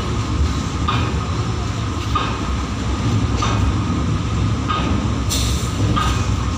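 Train running along the track: a steady low rumble with a wheel clack about every second and a quarter.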